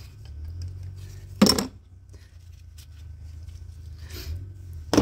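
Two sharp metallic clicks about three and a half seconds apart as a hose clamp is worked off a cut length of heater hose, over a low steady hum.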